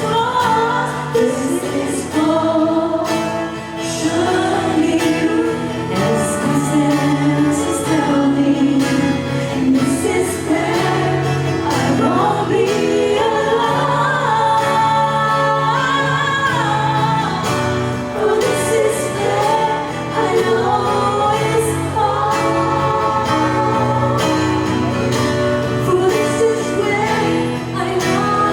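Several voices singing a song together in harmony over sustained musical accompaniment, performed live.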